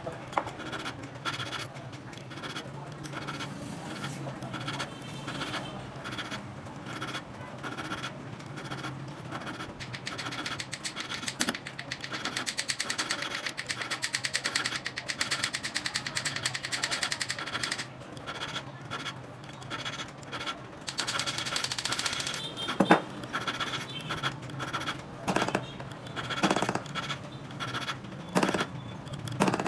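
Jeweler's bench work on a small 18k gold ring: metal scraping and clicking, with a fast, steady buzzing stretch in the middle and another short one later, then a few sharp taps.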